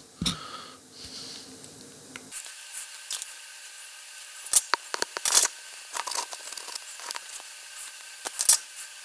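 A handful of sharp snips as blades cut through the wire and insulation of a MagSafe 2 charging cable. The loudest come about five seconds in and again near the end.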